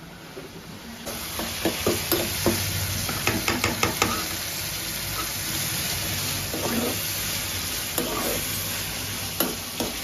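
Chopped tomatoes frying in hot oil in a metal pan, a steady sizzle that starts about a second in. A spatula stirs through them, clicking and scraping against the pan, most often in the first few seconds of the sizzle.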